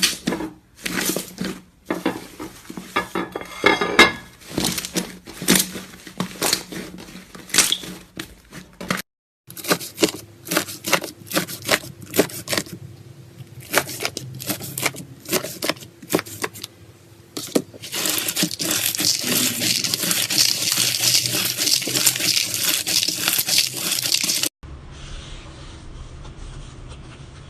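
Slime being squeezed, poked and stretched by hand, making a string of sticky clicks, pops and crackles. About two-thirds of the way through the crackling becomes dense and continuous, then cuts off abruptly to a faint hiss.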